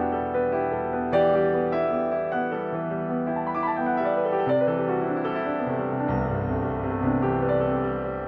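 Background music: soft piano.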